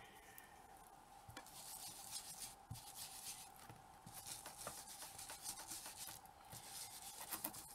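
Ink blending tool rubbed over a textured card floor panel in faint, uneven strokes, working walnut stain ink in to darken it.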